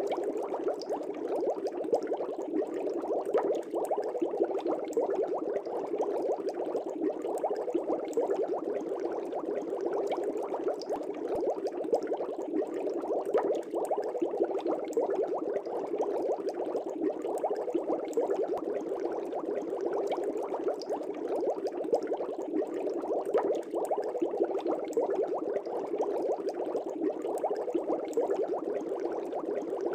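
Air bubbling up steadily through an aquarium's water from an aerator, a dense continuous burble with small pops and crackles.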